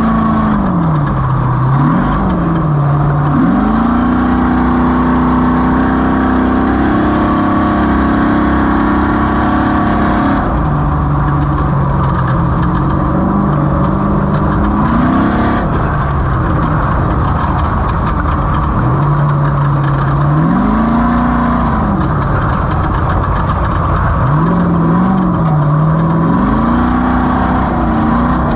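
Off-road race vehicle engine under hard driving, its pitch rising and falling again and again with throttle and gear changes, over a dense roar of drivetrain, wind and terrain noise.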